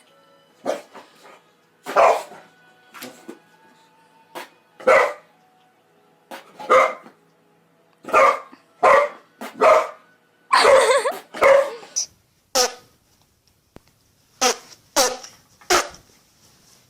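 A dog barking over and over in short separate barks, irregularly spaced, with a longer run of barking in the middle.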